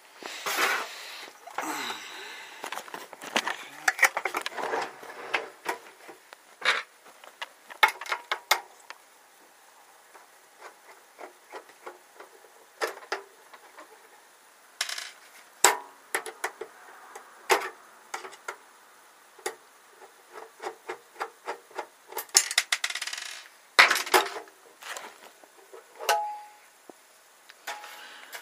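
Handling noise: irregular clicks, knocks and rubbing as the gutted mixer chassis, rewired as a MIDI controller, is handled and turned over, with quieter stretches between the bursts.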